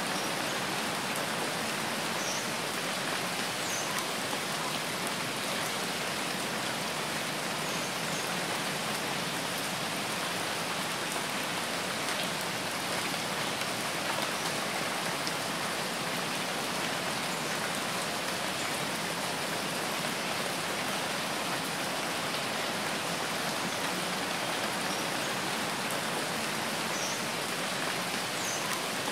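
Steady rain falling, an even hiss that holds the same level throughout, with a few faint high ticks of single drops.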